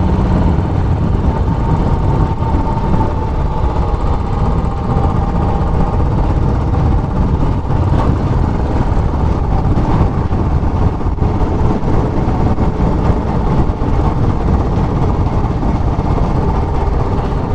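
Royal Enfield Classic 500 single-cylinder motorcycle engine running steadily on the move, with a dense, even rush of noise over it.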